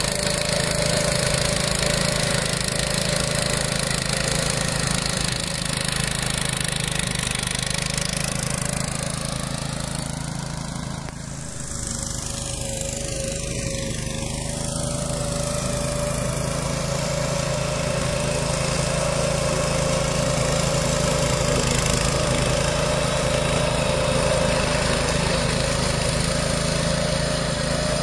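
The 352 cc Loncin single-cylinder four-stroke engine of a DAKR FD3 ECO two-wheel tractor running steadily while its M121 twin-rotor mulcher cuts grass. The engine sound dips slightly in loudness about eleven seconds in, then carries on as before.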